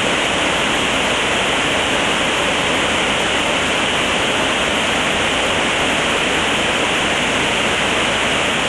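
Swollen, fast-flowing river water rushing: a loud, steady roar.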